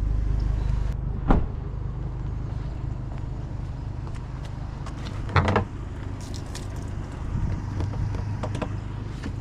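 A vehicle engine running with a steady low rumble, with a sharp knock about a second in and a louder clatter a little past halfway.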